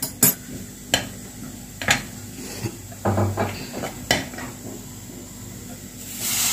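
Steel spoon scraping and clacking against a metal kadhai while stirring crumbly besan zunka, with sharp knocks about a second apart. Near the end a hiss rises as water is splashed into the hot pan.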